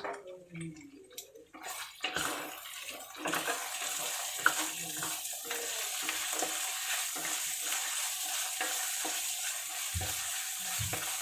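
Olive-oil sauce sizzling in a pan, a steady hiss that sets in about three seconds in, while it is stirred, the utensil clicking and scraping against the pan; two dull knocks near the end.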